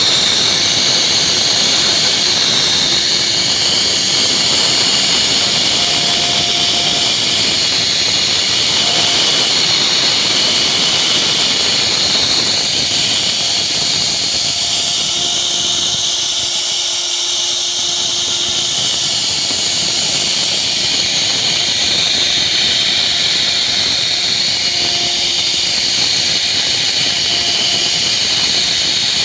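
CNC router cutting wood, its spindle giving a loud, steady high whine and hiss.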